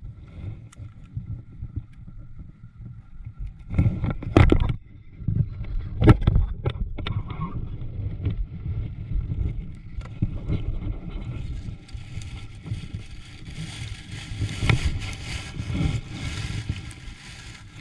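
Sounds of a kayak out on the water: a steady rumble of wind on the microphone, a few sharp knocks about four and six seconds in, and a broad hiss that comes up from about twelve seconds on.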